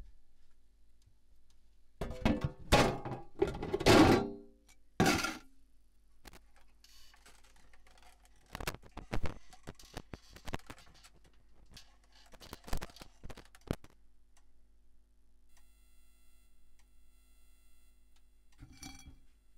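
Ceramic plate knocking and clattering as it is handled and set down on top of a deep fryer, a run of loud knocks over a few seconds near the start, then a few lighter clicks and taps.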